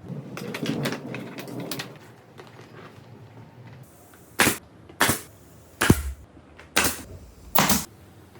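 A brief clatter of small clicks, then five sharp knocks spaced a little under a second apart.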